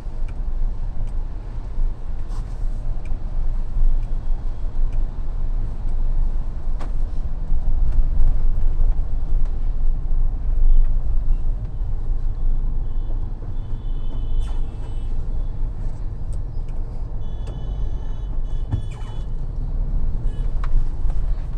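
Inside the cabin of a Mahindra Thar on the move: a steady low rumble of engine and tyres on wet road, with scattered light clicks and a few brief high tones in the second half.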